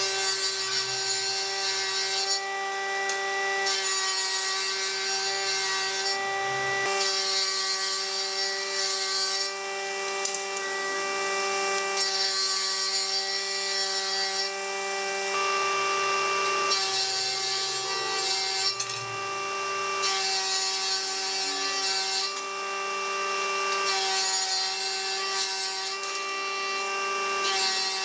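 Table saw on a NISING combination woodworking machine running steadily and ripping pallet boards lengthwise. It makes about seven cuts of a few seconds each, with short pauses between them in which the blade runs free.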